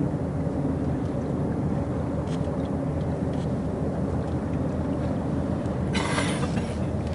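Steady wind noise on the microphone and water rushing past the hull of a sailboat under way, with a brief splash of spray about six seconds in.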